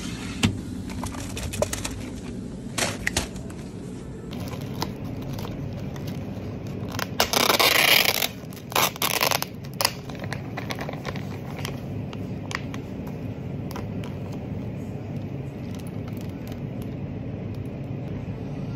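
Plastic packaging handled and torn open: a few light clicks and rustles, then a loud crinkling tear lasting about a second, followed by a few shorter crinkles. After that there is only a steady low room hum.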